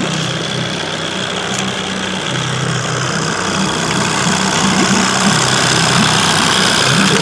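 Boat motor running steadily at low trolling speed, a constant low engine hum with a hiss of water and air over it.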